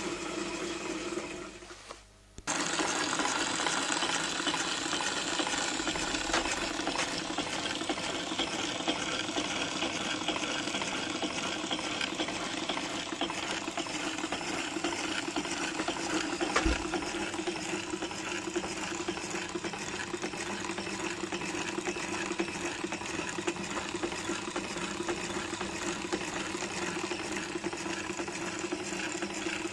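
Home-built model V8 electromagnetic coil engine running steadily: a fast, even mechanical clatter with a steady hum underneath. The sound drops out briefly about two seconds in, and there is one louder knock a little past the middle.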